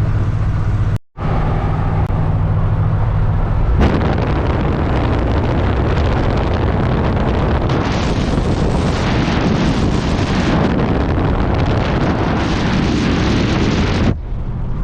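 A vehicle engine drones at a steady pitch, with a brief dropout about a second in. About four seconds in it gives way to a loud, dense rushing noise, like wind and road noise on the microphone, which lasts until near the end.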